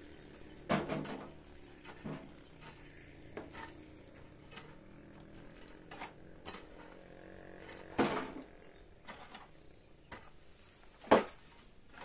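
A hand hoe chopping and scraping into stony soil, striking irregularly about once a second. There are louder knocks about a second in, at about eight seconds, and near the end.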